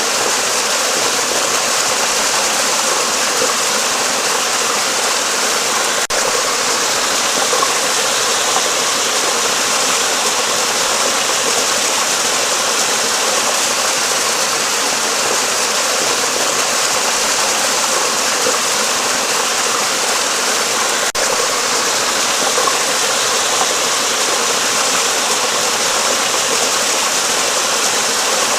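Flowing water rushing steadily, as a stream runs beneath a bridge.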